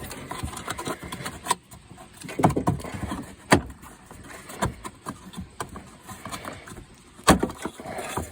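Hand work on a car's front turn signal light assembly: scattered clicks and knocks of plastic and hardware being handled as the signal light is worked loose, with three sharper knocks.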